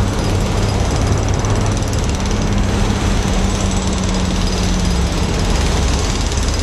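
EMD 16-645E two-stroke V16 diesel engine of a G26CU locomotive running steadily while the locomotive stands still, a loud, even engine clatter with a low hum.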